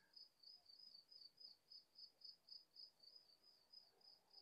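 Faint cricket chirping: one high note pulsing evenly about four to five times a second, over near silence.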